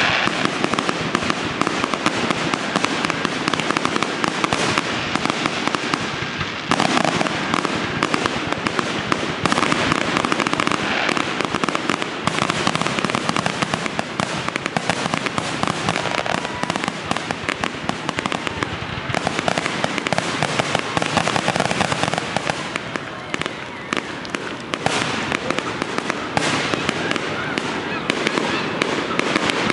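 Fireworks going off in rapid, near-continuous succession: a dense stream of bangs and crackling with no pause.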